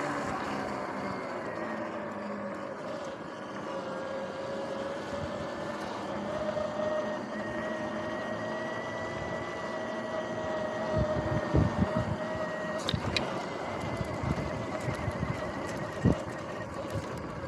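Electric dirt bike's motor whine, a steady high tone that rises slightly and then holds, over tyre and wind noise. About two-thirds of the way through, the whine drops away and the bike jolts over rough ground with a series of knocks and thumps.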